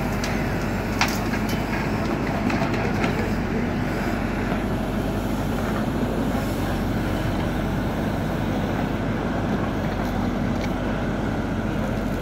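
JCB 4CX backhoe loader's diesel engine running steadily under work, with a sharp knock about a second in and a few lighter knocks around two and a half to three seconds in.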